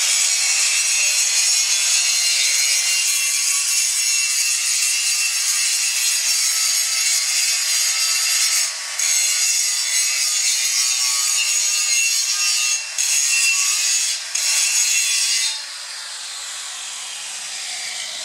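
Electric angle grinder grinding down the excess weld penetration on the back of a thick steel butt-weld test plate: a loud, steady grinding hiss. The disc lifts off the metal briefly three times, and about fifteen seconds in the grinding stops and the sound drops to a quieter noise.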